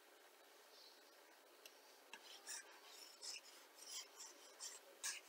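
Near silence, then from about two seconds in a stylus scratches across a writing surface in short strokes, two or three a second.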